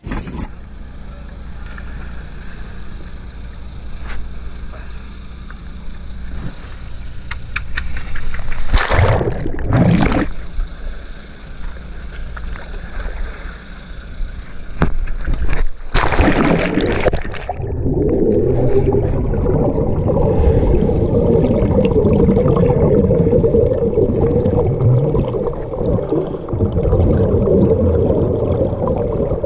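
A small boat's engine running with water rushing along the hull, broken twice by loud splashes as gear and line go over the side. From about eighteen seconds in the sound turns to muffled underwater churning and bubbling from a descending hose-fed diver's exhaled air.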